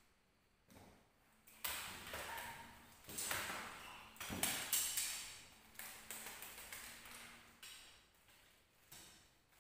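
Sharp knocks and clacks with a short ringing tail, about eight in a string, loudest and closest together around the middle, as large leather wayang kulit puppets on their rods are swung and clashed in a fight scene.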